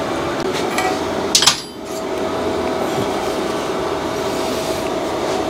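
A few sharp metallic clanks about a second and a half in, as hand tools and metal are handled on a steel plate bench. Under them runs a steady mechanical hum.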